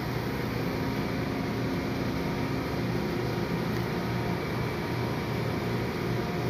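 Steady background hum aboard a ship: a low machinery drone under an even rush of ventilation air, unchanging throughout.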